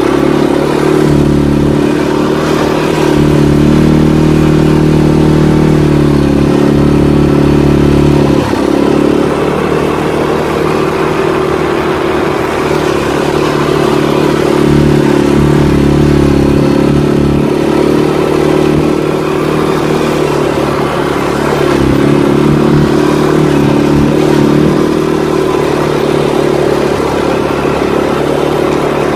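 CFMOTO ATV engine running as the quad is ridden, its note rising and falling with the throttle: it climbs about three seconds in, drops back near eight seconds, and picks up again past twenty seconds.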